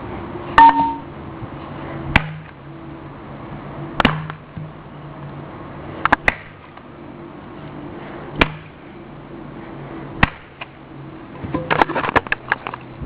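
Sharp blows struck on an alarm clock, single hits about every two seconds (one a quick double), then a rapid flurry of hits near the end, over a faint steady hum.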